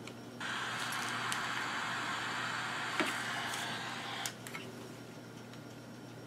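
Static hiss from the small speaker of a Grundig E Traveller VII portable radio, switched on and not tuned to a station. Its buttons click a couple of times, and the hiss cuts off suddenly about four seconds in.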